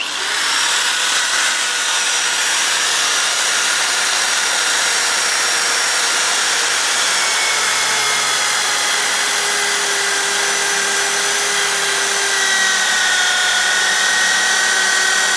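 Electric drill, clamped in a bench vise, starting up suddenly and running steadily while spinning a brush end against a cast iron doorbell to strip off old paint. The motor's pitch dips a little in the last few seconds.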